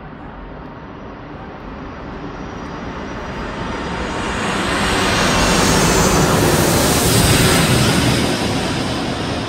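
Jet airliner on landing approach passing low overhead. Its engine noise swells to a loud rumble with a high whine about six to eight seconds in, then begins to fade.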